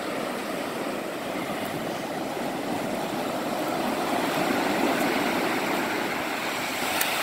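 Ocean surf: a steady rush of breaking waves and foam washing up the sand, swelling a little around the middle, with a light click near the end.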